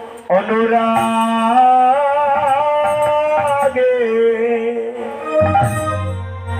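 Bengali devotional kirtan: a man sings long, slow, ornamented notes that waver and bend, drawing out the words of the song over musical accompaniment.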